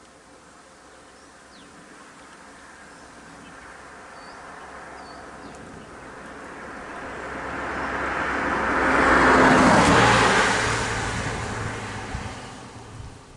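A motor vehicle driving past: it grows steadily louder, is loudest about ten seconds in as it goes by, then fades away.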